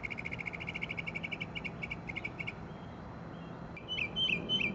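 Animal chirping in a nature sound bed: fast pulsing trills that thin out and stop about two and a half seconds in, then a quick run of sharp, falling calls near the end.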